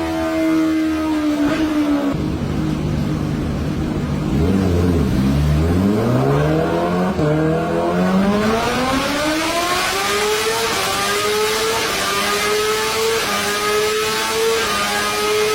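Kawasaki Ninja H2's supercharged inline-four engine, its pitch falling over the first couple of seconds, then climbing steadily from about five seconds in as it accelerates, and holding a high, slowly rising note to the end.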